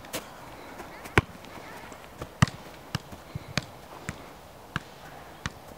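A football being juggled: sharp, irregular thumps of the ball against foot and knee, about eight touches.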